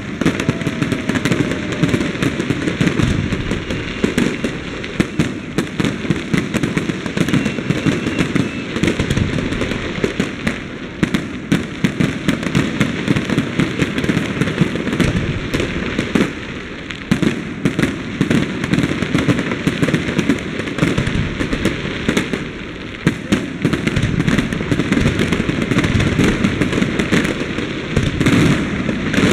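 Aerial fireworks display: many shells bursting in quick succession, a dense, unbroken stream of bangs and crackles.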